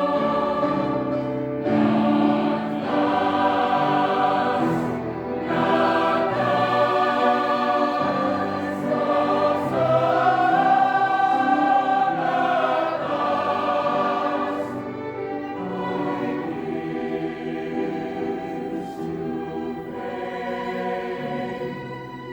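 Choir singing slow, sustained chords with instrumental accompaniment.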